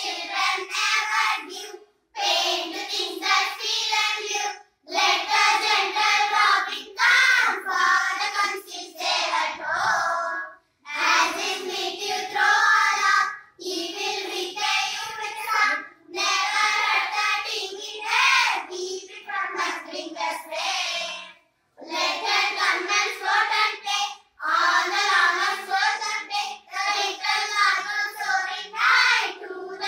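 A group of girls singing a poem together, line by line, with short breaks between the lines.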